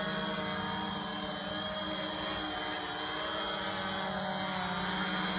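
Original DJI Phantom (P330) quadcopter's four motors and propellers running steadily, a many-toned buzzing hum that grows slightly louder toward the end. The drone is flying under its return-to-home feature.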